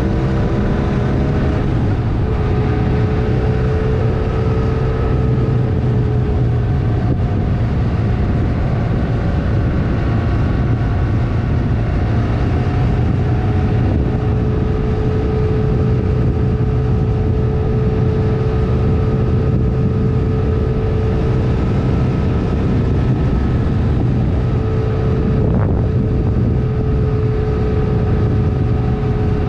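Honda CMX 500's parallel-twin engine pulling at a steady cruise, with wind noise on the microphone. The engine note shifts slightly at first, then holds steady.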